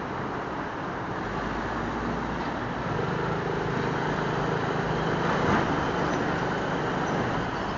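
Engine of a Suzuki Smash 115 underbone motorcycle running at low speed in city traffic, mixed with road and traffic noise. The engine hum grows a little louder and steadier about three seconds in.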